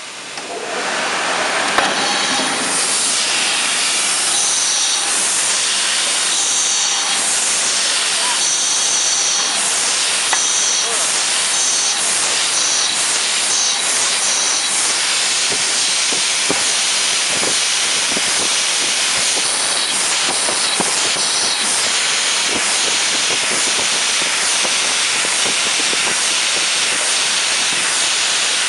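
Rotary water-bottling machine running: a steady, loud hiss, with quick repeated surges in the hiss through the first half.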